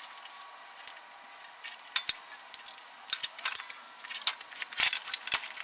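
Light metal clinks and taps of hand tools and bolts being handled, scattered and irregular, in a few small clusters with pauses between them.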